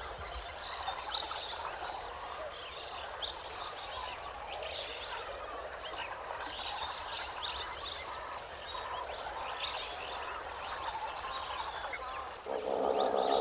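A chorus of many birds calling in short, overlapping chirps and squawks. Near the end a louder, lower, drawn-out call comes in over them.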